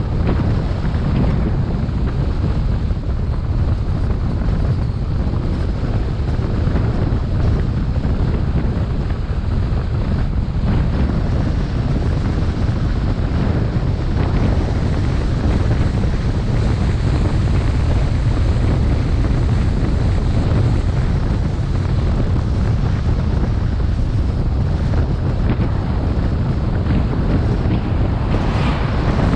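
Steady, loud wind buffeting the microphone while travelling, a dense low rumble with no letup. A brief higher rush comes near the end.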